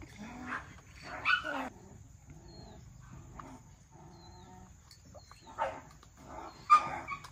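A dog barking a few times, with short loud barks about a second in and again near the end.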